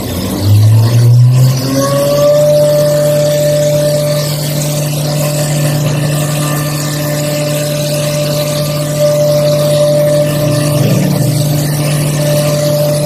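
CNC milling machine spinning up, its pitch rising over the first two seconds, then running steadily while cutting harmonica combs from Corian and acrylic blocks. A higher whine from the cutting comes and goes.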